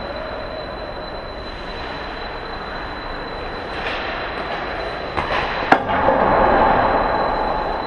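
Ice hockey skates scraping and carving on the ice, with two sharp cracks of stick and puck a little past halfway as a shot comes in on goal, followed by a louder spell of skates scraping close to the net.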